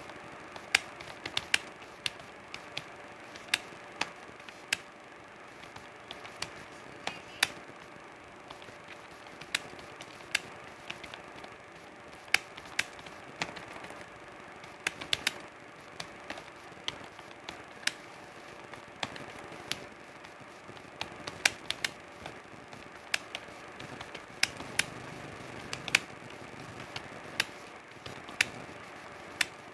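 Computer keyboard keys struck at an uneven pace: sharp, separate clicks, one to a few a second, over a steady faint hiss.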